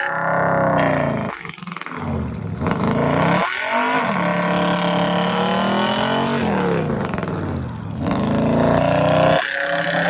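Car engine revved hard again and again, its pitch climbing and dropping about four times, with a strong hiss running alongside.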